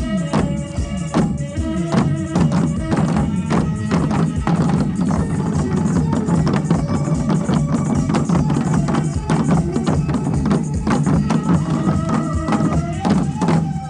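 Music with a steady drum beat and a melody over it.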